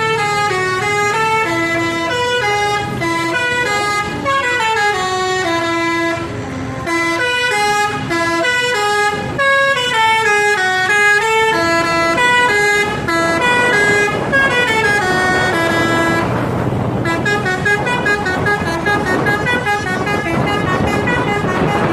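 Multi-tone 'telolet' Basuri bus horn playing a tune of quick stepping notes, some sliding up and down. From about halfway through a rushing noise runs under the horn notes.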